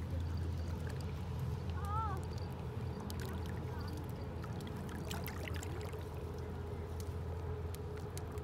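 River water lapping and trickling among shore rocks in shallow water, over a steady low hum, with a few small ticks and a brief chirp about two seconds in.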